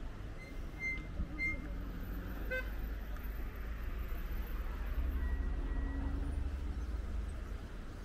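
Urban road traffic: a steady low rumble of passing vehicles, with a few short high beeps in the first three seconds and one vehicle going by louder about five seconds in.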